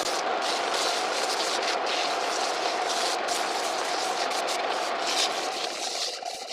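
Homemade wood lathe running while a turned piece of wood is being worked on it: a steady machine hum with a hiss over it that eases off near the end.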